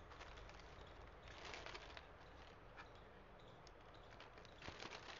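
Clear plastic poly bag crinkling as it is handled and pulled off the jeans, in two short bursts: one about a second in and one near the end.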